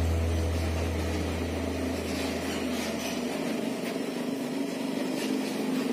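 Hino SG260 tractor-trailer truck's diesel engine running as it drives past on the road, with tyre and traffic noise.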